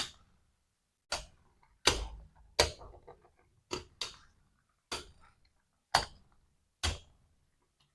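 Spinning Beyblade tops clashing together and striking the stadium wall in a battle: about nine sharp plastic clacks at irregular intervals, roughly one a second.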